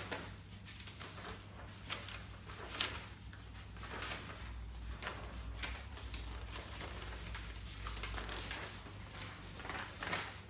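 Paper rustling and shuffling as a stack of sheets is leafed through by hand, in a string of small, irregular crinkles and flicks, over a low steady hum.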